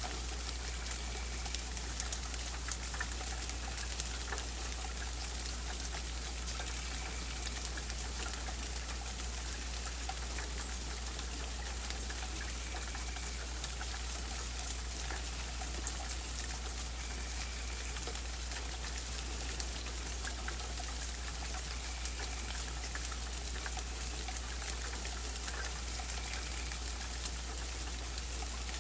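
Steady rainfall with many individual drops ticking and pattering. A faint short call near the same pitch comes back every few seconds.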